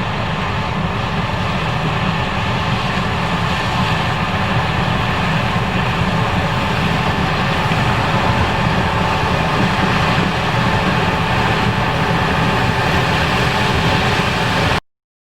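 Case IH 5140 Axial-Flow combine running steadily with a dense, low machine drone. It cuts off abruptly near the end.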